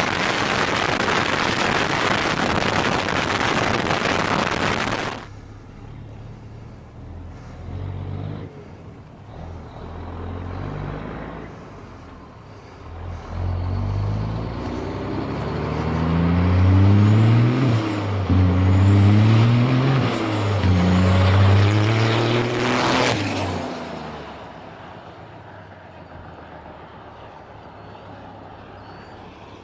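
Rush of wind and road noise from a camera riding on the side of a moving semi-truck, cutting off after about five seconds. Then a Peterbilt semi-truck's diesel engine accelerating hard toward the listener, climbing in pitch and dropping back with each of three upshifts. It passes close with a loud rush and fades to a distant rumble.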